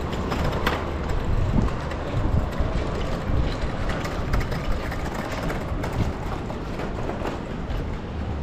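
Outdoor street ambience: a steady low rumble with scattered clicks and knocks.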